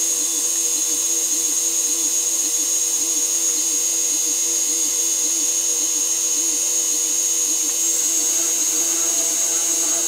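A CNC mini mill's spindle runs with a steady high whine while a 1/8 inch end mill plunge-bores a hole in a metal plate. Under the whine, a low hum swells and fades in a regular cycle about every second.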